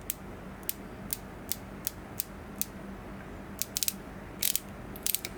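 Ratcheting screwdriver's ratchet clicking as the handle is turned back. First single clicks about two a second, then quicker short runs of clicks, with light back drag.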